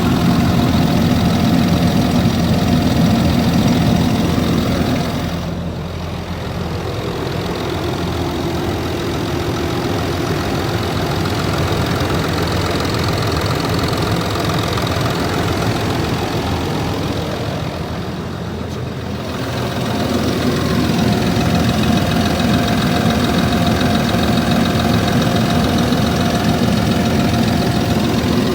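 Land Rover Discovery 3's 2.7-litre TDV6 V6 turbodiesel idling cold with a steady knock, the cold-engine knocking the owner is recording. Twice the sound drops quieter and duller for a second or two.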